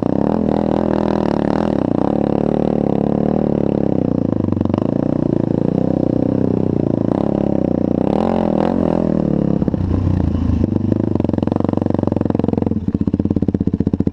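Sport ATV engine running under varying throttle while riding through sand, its pitch rising and falling; about 13 s in it drops to a slower, even pulsing beat.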